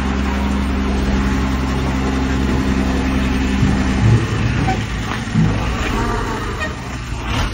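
Heavy truck's diesel engine running steadily under load. The steady drone breaks off about four seconds in, followed by a couple of short knocks and a rougher, lower rumble.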